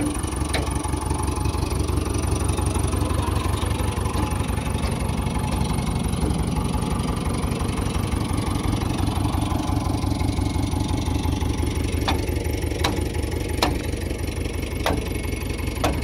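JCB 3DX backhoe loader's diesel engine running close by as the machine drives, a steady low rumble. A few sharp metallic clicks or knocks sound in the last few seconds.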